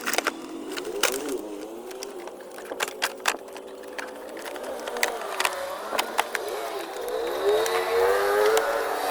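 BMW X2 engine revving up and down several times, with a longer rise near the end, and sharp clicks throughout.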